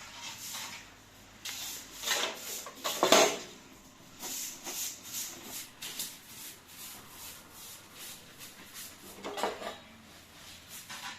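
Irregular scraping and clattering of household objects being handled, with a louder knock about three seconds in and another about nine and a half seconds in.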